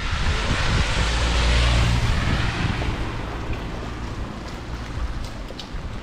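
Car tyres hissing on a wet road as a vehicle passes, the hiss swelling and fading over the first three seconds. Wind rumbles on the microphone throughout.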